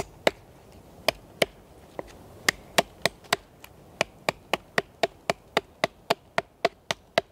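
Manly Blaze knife's 4 mm D2 steel blade chopping into a stick of resinous pine on a stump. The sharp chops come slowly at first, then settle into a steady run of nearly four a second.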